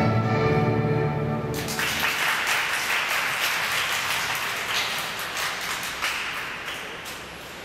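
Recorded music ends about one and a half seconds in and gives way to applause, which fades toward the end.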